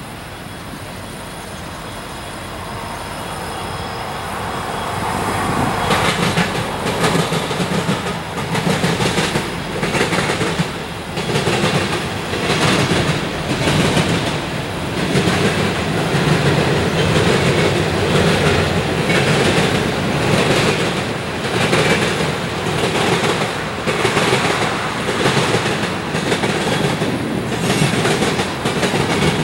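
Freight train passing close by. Its sound grows louder over the first six seconds, then the cars roll past with a steady rhythmic clickety-clack of wheels over the rail joints, about one beat a second.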